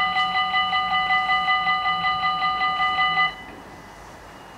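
Electronic level-crossing bells ringing fast, about five strokes a second at several pitches, while the barriers come down. They cut off suddenly about three seconds in, once the barriers are fully lowered.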